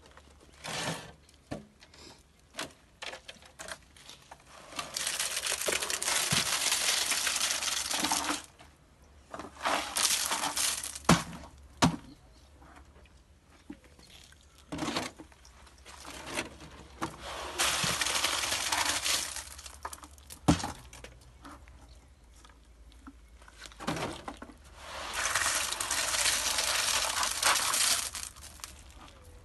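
Gravelly concrete mix of cement, sand and river stone being worked into a floor: four spells of gritty rushing noise a few seconds long each, with scattered clicks and knocks of stones and tools between them.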